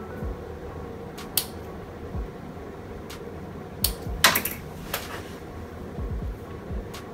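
Small metal tools clicking and clinking against a workbench as they are handled, with a cluster of quick clinks about four seconds in, over a faint steady hum.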